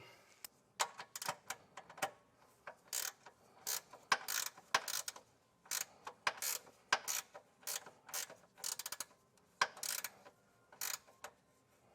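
Ratcheting flex-head spanner clicking in short bursts of strokes as it tightens the 13 mm nut of a sway bar bushing bracket.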